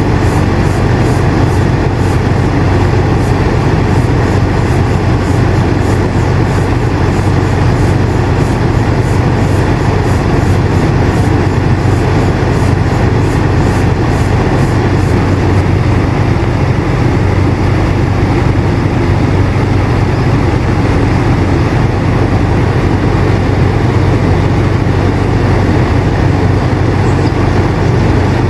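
Air conditioner running steadily: a constant low hum under an even rush of air.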